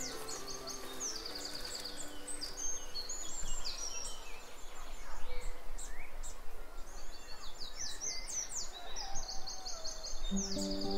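Several birds chirping and singing, with quick repeated trills, over a steady outdoor background. Soundtrack music fades out about a second in, and an acoustic guitar starts playing just before the end.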